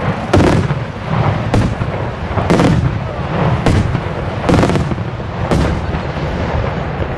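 Aerial firework shells bursting in quick succession, a loud bang about once a second over a steady low rumble.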